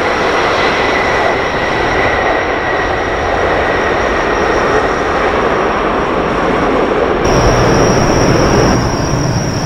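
Steady jet engine noise from an Airbus A350-1000's Rolls-Royce Trent XWB engines, a loud roar with a thin whine over it. About seven seconds in, the sound changes abruptly to a deeper rumble with a higher-pitched whine.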